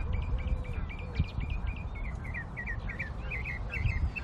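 A small bird calling in a quick run of short, high chirps that come faster in the second half, over a steady low rumble.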